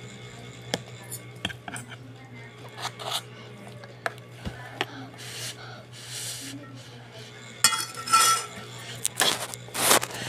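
Metal fork and spoon clinking and scraping against a pot of instant noodles, then several loud slurps of noodles in the second half, over a steady low hum.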